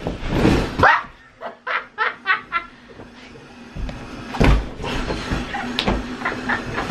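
Laughter, a quick run of short ha-ha-ha sounds, among dull heavy thumps of bodies dropping and bouncing onto an inflatable air mattress, the loudest thump about four and a half seconds in.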